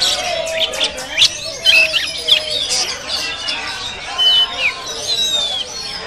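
Oriental magpie-robin singing at close range: a fast, varied run of loud whistles, sharp chirps and slurred notes.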